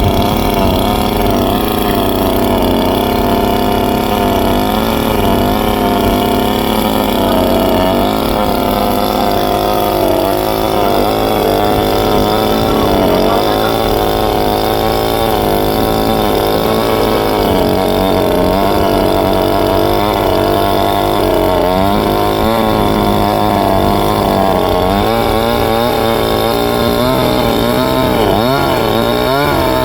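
Chainsaw running continuously while cutting into a tree, its engine pitch wavering up and down as the load on the chain changes.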